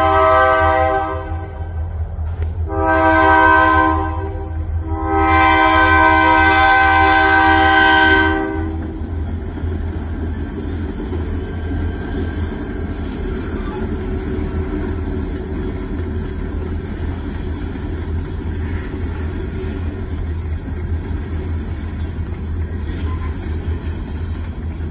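KJRY GP20 diesel locomotives sounding their multi-chime air horn for a grade crossing. One blast ends about a second in, then a short blast, then a long one that ends about eight seconds in. After it comes the steady rumble of the locomotives and freight cars passing over the crossing.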